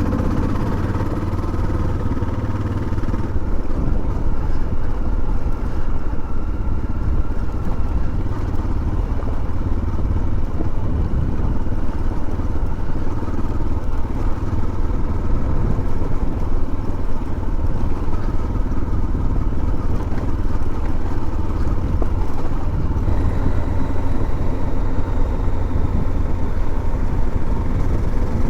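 Motorcycle riding along at steady speed, its engine running under a loud, unbroken low rumble.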